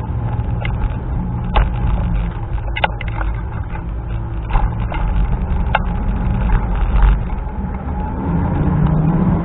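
Wind buffeting a scooter-mounted microphone over the low rumble of the moving scooter, with several sharp knocks or rattles along the way and a faint steady whine.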